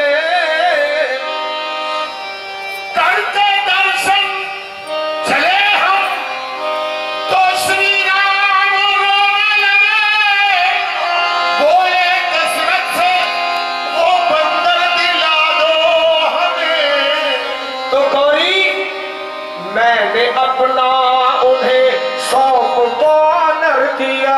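A man singing a devotional bhajan into a microphone with live instrumental accompaniment, drawing out long, wavering, ornamented notes.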